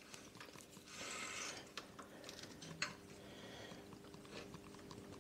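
Faint handling noises as a Lambretta gear-change cable is threaded into its adjuster on the engine: a short scrape about a second in and a few light clicks of cable and metal fittings, over a steady faint hum.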